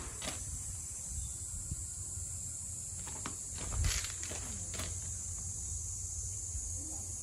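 A steady high-pitched hiss with a low rumble beneath it, broken by a few faint knocks, the loudest about four seconds in.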